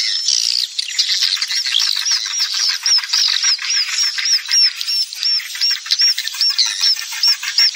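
Swiftlet lure recording: a mix of many swiftlets chirping and twittering over a fast, dry clicking texture. From about two and a half seconds in, one high chirp repeats steadily about four times a second. This is a call sound of the kind played at swiftlet houses to draw birds in to roost and nest.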